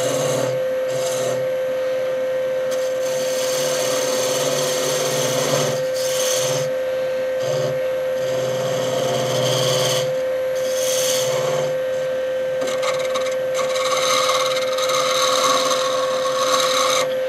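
Wood lathe running with a steady motor whine while a small shop-made turning tool cuts a spinning wooden spindle. The scraping hiss of the cut comes and goes in passes and eases off briefly a few times.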